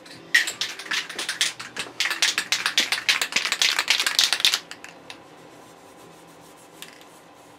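Aerosol spray-paint can being shaken, its mixing ball rattling in fast clicks for about four seconds, with a short break partway through.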